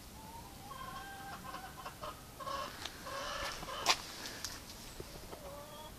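Chickens clucking faintly in a series of short, repeated calls, with a single sharp click about four seconds in.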